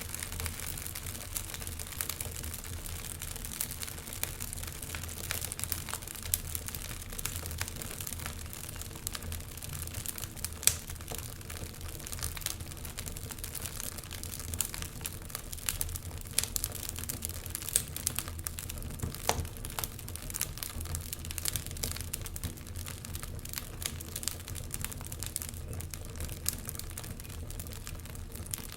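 Wood fire crackling, with frequent irregular pops and snaps over a steady low rush; one snap about eleven seconds in is louder than the rest.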